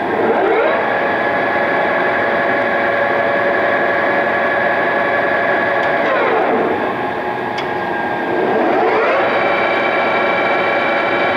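Polamco Tarnow TUJ-50M engine lathe running under power, its headstock gearing and spindle giving a steady whine of several tones. About six seconds in, the whine slides down in pitch and then climbs back up, settling at a higher pitch than before.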